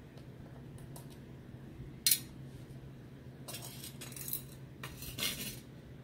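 Small laptop screws clinking against a small metal tin: one sharp metallic clink about two seconds in, then two short spells of rattling clinks.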